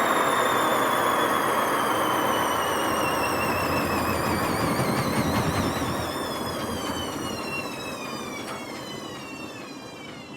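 Hotpoint WMA50 washing machine spinning down with its ballast removed: a whine that wavers and falls steadily in pitch over loud, rough noise from very bad drum bearings. Both fade as the drum slows.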